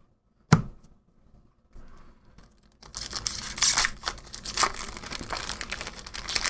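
A single sharp knock about half a second in. Then, from about three seconds in, the foil wrapper of a Double Masters booster pack crinkles and tears as it is ripped open.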